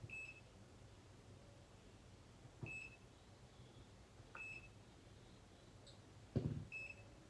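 Four short high-pitched beeps from a digital multimeter as its range button is pressed, a couple of seconds apart. A soft thump about six seconds in is the loudest sound.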